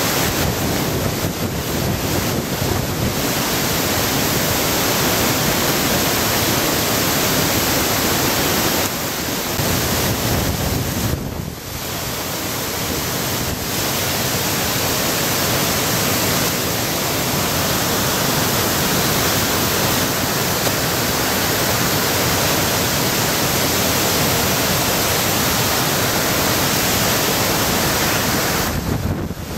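Floodwater from a typhoon surging through a rocky gorge as a constant loud roar of whitewater rapids, mixed with wind noise. The level dips briefly about eleven seconds in.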